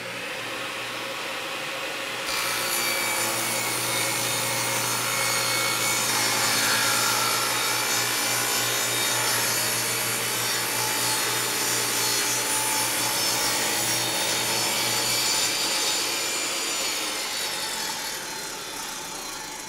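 Bosch portable table saw running, its blade cutting a first kerf through a crosscut sled's base and MDF fence as the sled is pushed through; the cutting sound comes in about two seconds in over the motor's steady hum and eases off near the end.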